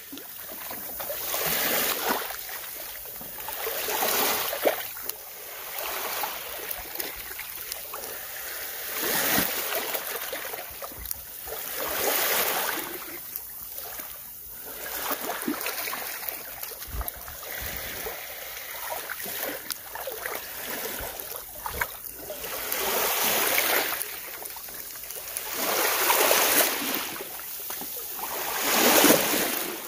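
Small waves lapping onto a sandy shore in calm shallow water, each wash swelling and fading every two to three seconds.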